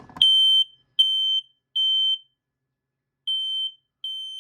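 Residential smoke alarm sounding on test. It gives loud, high-pitched, even beeps, three in a row, a pause, then a second set starting: the standard three-beep (temporal-three) alarm pattern.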